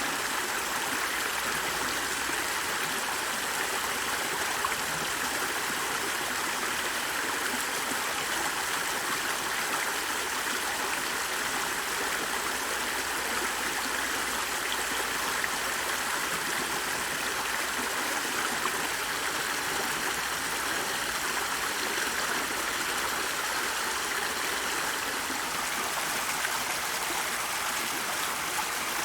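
Steady rush of running water, like a flowing stream, with no change in level.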